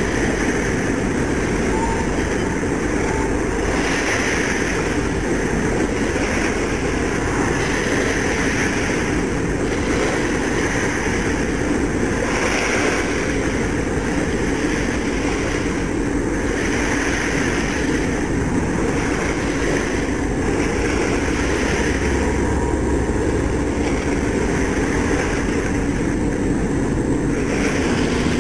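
Steady boat-engine rumble mixed with wind and water noise, swelling every couple of seconds.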